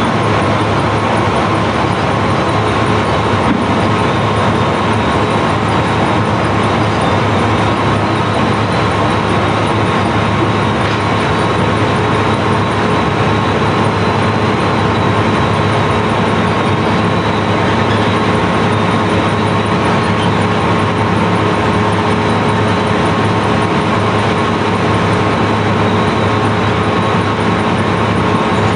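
Barge's sand-unloading machinery running steadily: a loud, even drone with several constant hum tones, one high whine among them, over a thick wash of noise.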